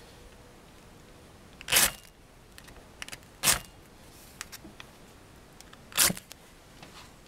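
Fire steel (ferrocerium rod) scraped against its striker three times, about two seconds apart, each stroke a short loud rasp. The third strike showers sparks into the alcohol stove and lights it.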